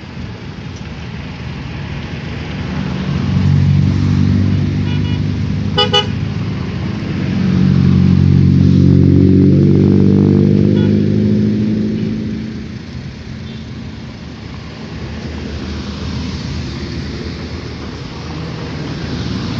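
Large road vehicles, most likely buses, passing close by with engine noise that swells around 4 seconds in and again, loudest, from about 7 to 12 seconds in; a very short high horn toot sounds about 6 seconds in.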